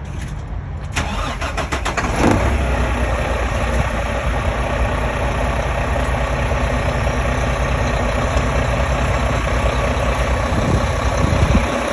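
Truck engine cranking with a quick run of starter strokes, catching about two seconds in and settling into a steady idle.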